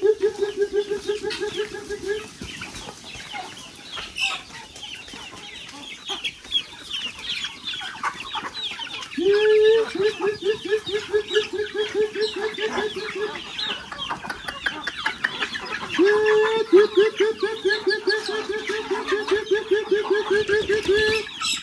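A man calling chickens with a fast, evenly repeated call, in three runs of a few seconds each: near the start, about nine seconds in, and again about sixteen seconds in. Through it all a large flock of chickens clucks and chirps.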